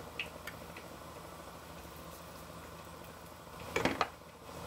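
Quiet kitchen background with a few faint clicks. Near the end comes a quick cluster of light clinks against a cooking pot as cumin seeds are added to the lentils and rice.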